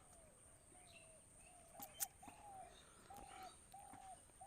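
Faint bird calls: a steady series of short, level notes, about one every half second to two-thirds of a second. There is a sharp click about two seconds in and a faint steady high tone underneath.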